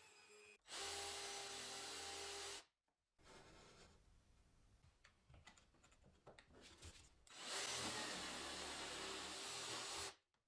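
A power tool running in two bursts of about two seconds each, each cutting off abruptly, with quieter clicks and rubbing of handling in between.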